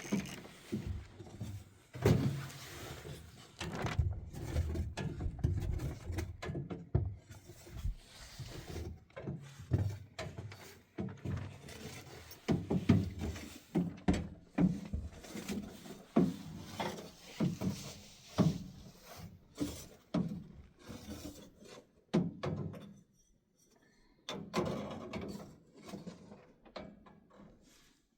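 Irregular knocks, thuds and clatter of things being handled and set down, with a short quiet spell about two thirds of the way through.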